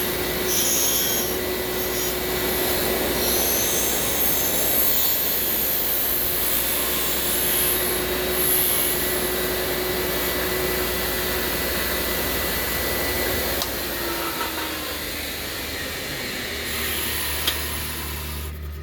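Bench grinder running with a steel pipe spacer held against its stone wheel to dress the cut end, then switched off about 14 s in, its motor whine falling as the wheel spins down.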